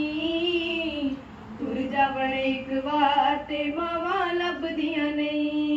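A schoolgirl singing a Punjabi song, amplified through a loudspeaker. The voice holds long notes, one near the start and one near the end, with melodic turns that glide up and down in between.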